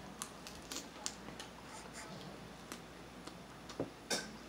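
Eating a seafood boil by hand: irregular small sharp clicks and cracks of crab-leg shell being broken and picked apart, the loudest two near the end.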